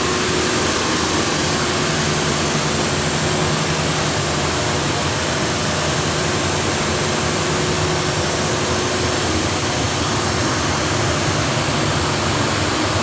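Miura EI 2000 GU gas-fired steam boiler running: a steady rushing noise from its burner and blower, with a low steady hum underneath.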